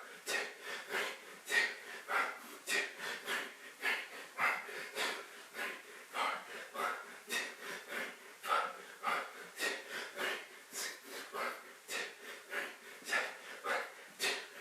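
A man breathing hard and fast while exercising, in quick, even breaths about two a second.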